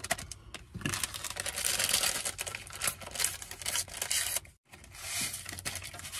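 Paper packets of instant oatmeal being torn open and crinkled, a dense rustling crackle that drops out briefly about four and a half seconds in.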